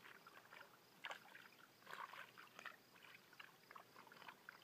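Creek chub breaking the pond surface, making a scatter of small, faint, irregular splashes and plops, the strongest about a second and two seconds in.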